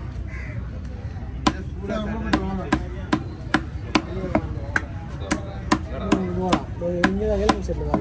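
Heavy knife chopping tuna loin into cubes on a wooden log chopping block: sharp chops at about two to three a second, starting about a second and a half in.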